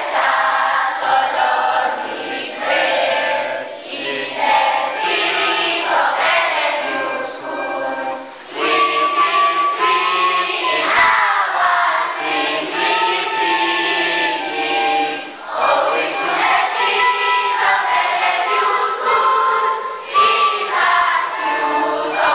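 A group of school children singing together in chorus, with short dips between phrases.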